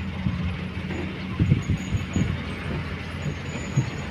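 Komatsu hydraulic excavator's diesel engine running steadily as it works, with a few dull thumps scattered through.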